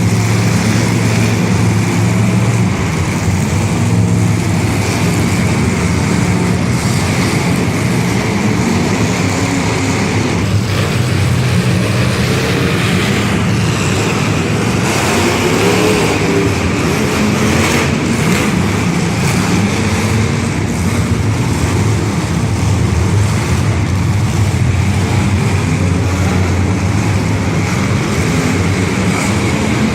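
Loud, steady engine noise from demolition derby cars running, with engine pitch wavering up and down partway through.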